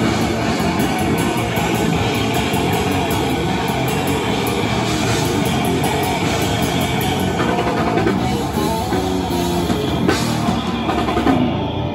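Live brutal death metal band playing loud through the stage PA: heavily distorted electric guitar and bass over fast, dense drumming with cymbals.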